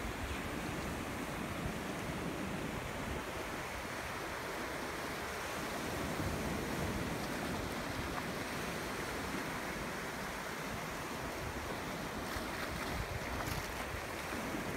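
Sea surf breaking and washing up a sandy beach in a steady rush, with wind rumbling on the microphone.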